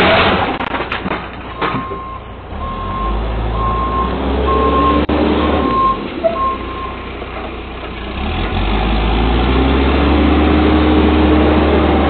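Backhoe's diesel engine running with its reversing alarm beeping six times at an even pace, then the engine revving louder over the last few seconds.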